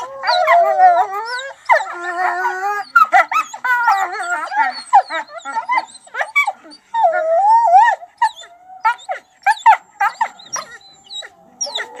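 A wolf pack howling and yipping together. Several wavering howls overlap at first, then give way to many short, quick yips and barks over a thinner, held howl.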